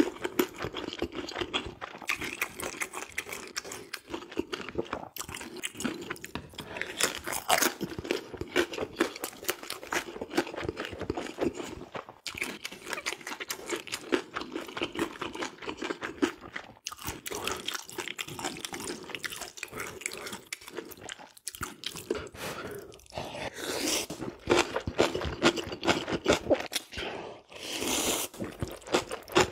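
Close-miked eating: wet chewing and crunching of pan-fried dumplings and kimchi, with loud slurps of ramen noodles near the end.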